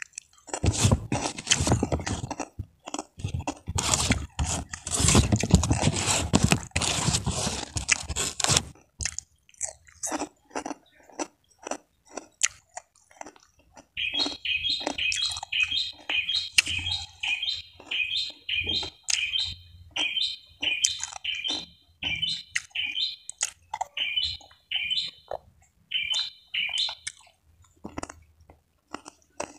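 Close-up chewing and crunching of crisp food, loud and dense for the first nine seconds or so, then slower, sparser chewing. From about halfway a bird chirps in a quick repeated series, roughly two calls a second.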